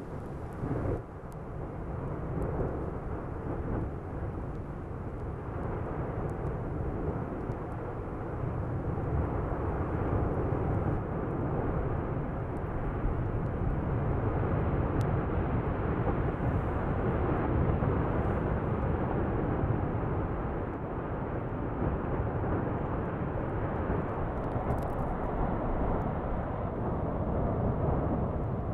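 Basaltic lava fountaining from the Fagradalsfjall eruption vent: a steady, deep rushing rumble that grows louder about eight seconds in and stays strong.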